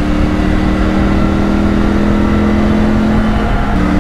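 Triumph Tiger 900 Rally's 888 cc inline-three engine running steadily on the road, its pitch creeping slowly upward, with a short break in the note near the end before it picks up again.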